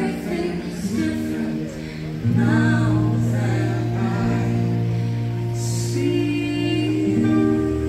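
Fireworks show soundtrack music with choir singing, in long held notes; a deep sustained bass note comes in about two seconds in.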